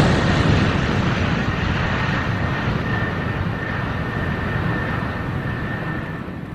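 Jet airliner flying by: a steady rushing engine noise, with a thin high whine joining about two seconds in, fading gradually toward the end.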